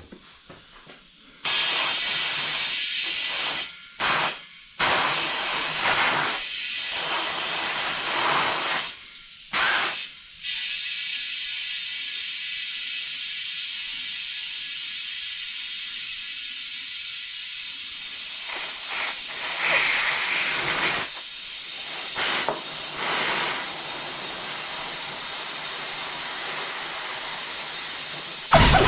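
Compressed air hissing as it is blown into a Porter Cable pancake compressor's tank through an air line, in short blasts at first and then one long steady blast, to find where the tank is leaking. A sharp knock near the end.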